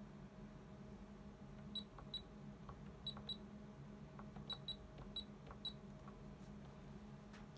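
Keysight U1733C handheld LCR meter beeping as its keys are pressed: eight short high-pitched beeps, mostly in quick pairs, with faint key clicks between them and a low steady hum beneath.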